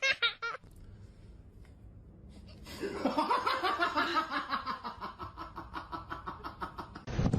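A person laughing: a long run of quick pulses, about four a second, starting about three seconds in and running on for some four seconds. It is preceded briefly by the end of a higher-pitched giggle.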